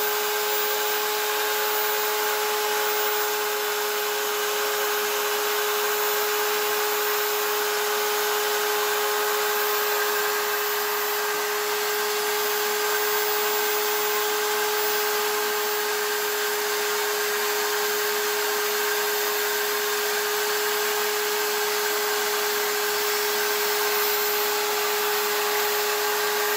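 Small electric motor running steadily with a constant whine, spinning a coin ring on a mandrel while it is sanded and polished by hand with abrasive paper and cloth, giving a steady hiss under the hum.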